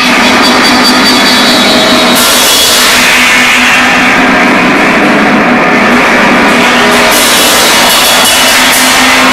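Loud, unbroken wall of distorted amplified noise from cans played through echo and an amplifier, with a steady low hum underneath. The hiss at the top thins out for a few seconds in the middle, then comes back.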